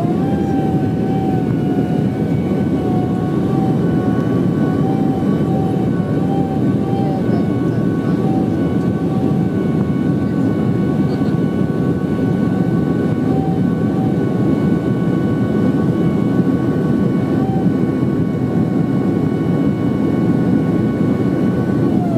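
Boeing 767-300ER jet engines heard inside the cabin at climb power after takeoff: a steady rush with a steady multi-tone whine over it.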